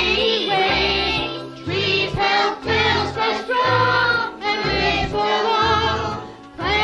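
A woman and a group of kindergarten children singing a children's song together over instrumental backing with a bass line.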